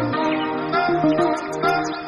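Background music with a plucked-string melody over steady held notes.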